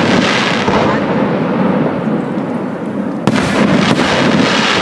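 Professional aerial fireworks display: aerial shells bursting in a continuous dense rumble, with a sharp new bang about three seconds in.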